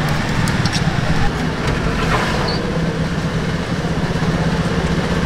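Steady mechanical hum: a constant low drone over an even rushing noise. A few faint light clicks come in the first couple of seconds.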